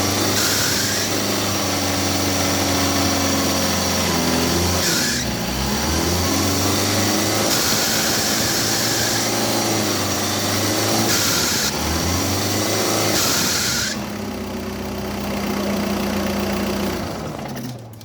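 Mitsubishi L200 Savana pickup engine idling and being revved in several short blips, each bringing in a loud hiss: the noise this truck makes when accelerating. It then idles steadily and dies away near the end.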